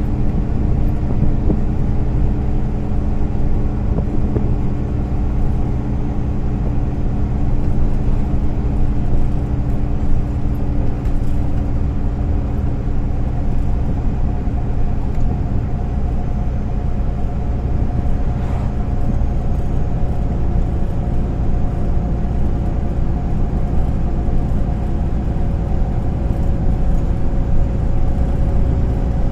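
Cabin sound of a MAN Lion's City A20 NL low-floor city bus under way: a steady drone from its diesel engine over a low rumble of road and tyre noise. About halfway through the engine note changes, with higher tones coming in.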